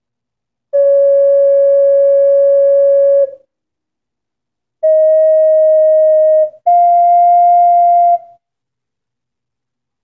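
A 'Rhythm of the Earth' alto C ocarina playing three long held notes, each a step higher than the last, the last two joined almost without a break. The tone is pure and whistle-like, and the tuner reads the middle note as E-flat. The uploader finds this ocarina tuned sharp, closer to A=465 than concert pitch.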